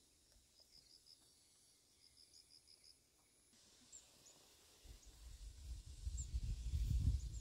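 Quiet field ambience with a high chirp repeated in quick runs of four or five, about once a second. About five seconds in, low rumbling thuds come in and grow louder toward the end.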